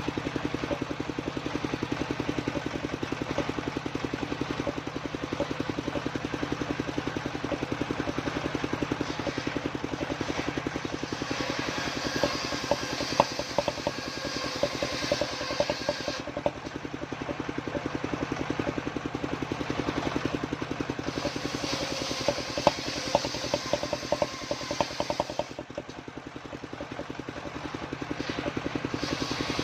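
Engine of a homemade circular saw rig running steadily with a fast, even beat. Twice, from about ten to sixteen seconds in and again from about twenty-one to twenty-five, the blade cuts through waru wood, adding a hiss and clicks over the engine.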